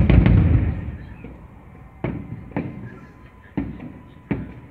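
Aerial firework shells bursting: a loud bang at the start with a long rolling echo, then four more, quieter bangs over the next few seconds, each trailing off.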